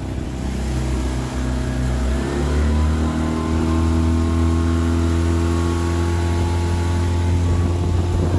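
A 15 hp Mercury outboard motor pushing a small aluminium boat under power. Its pitch rises as it speeds up about two seconds in, then holds steady at speed.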